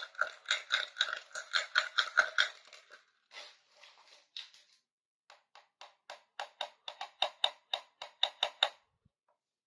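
Small plastic toy-kitchen pieces clicking as they are handled and fitted together. There are two quick runs of sharp clicks, about four or five a second, with a short scraping stretch between them.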